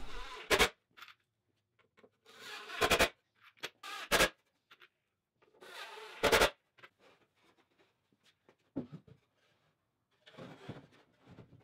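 Craftsman V20 cordless drill driving screws into plywood in several short bursts, some building up and ending sharply as the screw seats. Near the end, light knocks and scrapes of plywood being handled.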